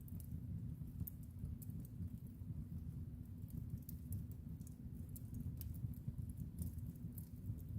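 Fireplace fire crackling: irregular sharp pops and ticks, several a second, over a low steady rumble of burning flames.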